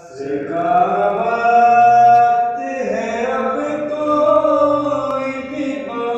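A man's solo voice reciting a noha, a Shia lament for Imam Hussain, sung in long drawn-out held notes that glide between pitches.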